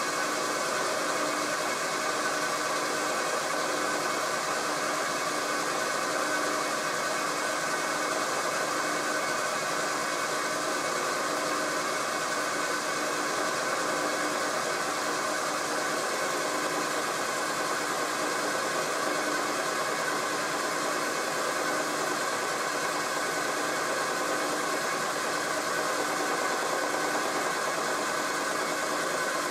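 Milling machine spindle turning a homemade carbide-insert face mill at about 600 rpm, taking a light 0.1 mm facing cut across a steel block under power feed. It is a steady machine whine with little cutting noise, the sign of a clean cut.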